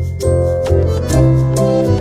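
Background music: keyboard instruments playing held chords over a bass line, with a steady beat.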